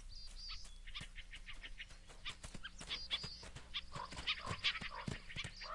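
Faint wild-animal and forest sounds: scattered clicks and crackles with a few short high chirps, and a thin high whistle held for about a second and a half past the middle.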